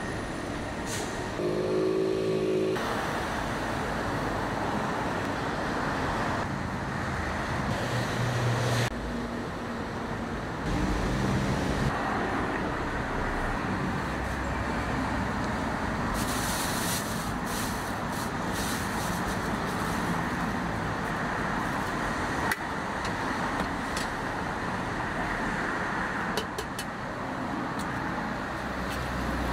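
Steady city street traffic noise from passing cars, with a few short clicks later on.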